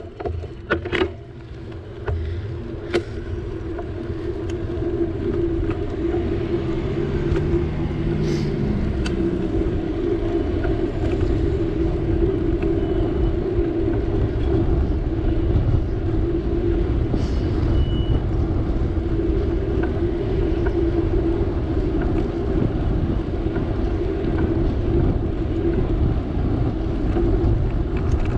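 Bicycle riding along a road: a steady rushing of wind on the microphone and tyre noise, with a steady hum. A few sharp clicks and knocks come in the first three seconds.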